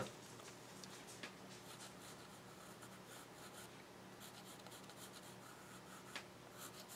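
Faint scratching of a pencil drawing lines on watercolour paper, with a couple of light ticks.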